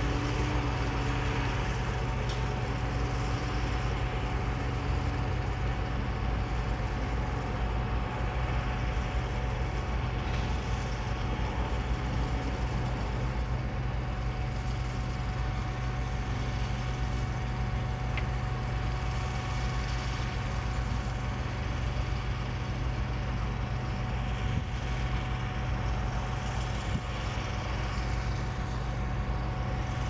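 Diesel engines of heavy asphalt-paving equipment running steadily, a Caterpillar 420E IT backhoe loader driving among them, with a thin steady whine over the low engine drone.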